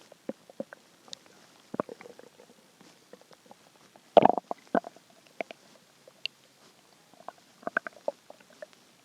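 A hungry person's empty stomach growling and gurgling in a string of short bubbly gurgles and pops. The loudest, longest gurgle comes about four seconds in, and another cluster comes near the end.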